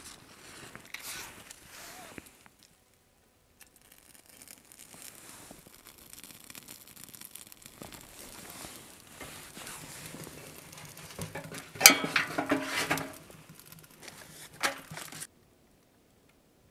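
Plastic film being handled, crinkling and tearing in irregular bursts, loudest about twelve seconds in, then the sound cuts off suddenly.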